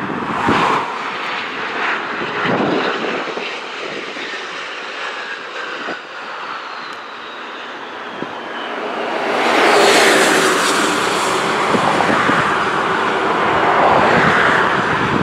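Turbofan engines of a twin rear-engined regional jet as it lands and rolls out, a steady rushing whine with a faint falling tone through the middle. About nine seconds in the engine noise swells into a much louder rush that stays strong as the jet passes close by on the runway.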